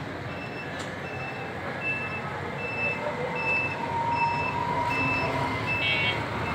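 A vehicle's reversing alarm giving short, high, evenly spaced beeps, about one and a half a second, over a steady background of traffic and crowd noise.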